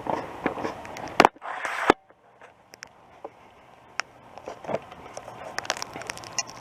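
Camera handling noise: scattered clicks, knocks and rubbing. A loud burst of noise comes about a second in, and there is a quieter stretch after it before the clicks pick up again.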